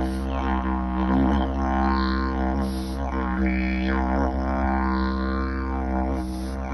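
Nanodidg pocket didgeridoo playing a continuous low drone, its tone shifting in slow wah-like sweeps about every one and a half seconds as the player shapes his mouth.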